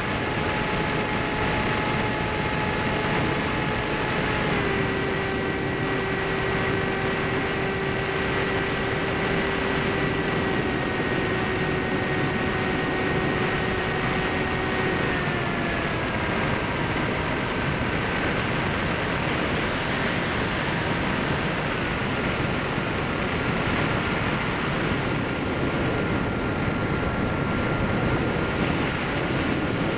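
Electric motor and propeller of a Bixler/Skysurfer foam RC plane whining in flight, heard from an onboard camera over steady rushing wind noise. The whine holds steady pitches and steps lower a few times.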